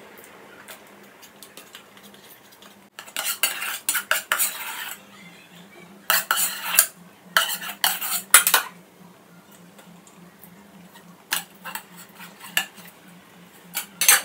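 Metal spoon scraping and clinking against a metal pot and a stainless steel plate as food is served, in three separate spells of clatter.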